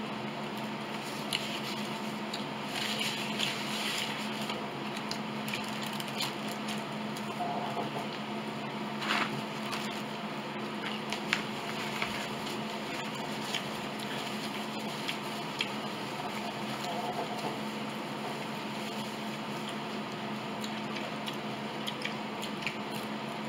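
Quiet chewing and mouth sounds of a person eating, with scattered small clicks and rustles from food and a napkin being handled, over a steady electrical hum.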